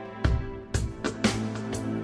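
Background music with a steady beat, about two beats a second, over held chords.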